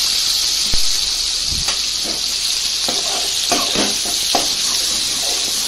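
Ginger-garlic paste sizzling steadily in hot oil in an aluminium kadai, with a few short scrapes of a slotted metal spoon against the pan.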